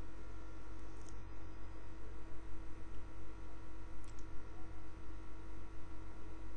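Steady electrical mains hum and noise from the recording setup, with two faint sharp clicks about one second and four seconds in.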